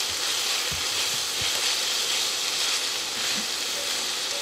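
Minced pork and bamboo shoots sizzling steadily in an iron wok while being stir-fried with chopsticks, with a few faint knocks in the first second and a half.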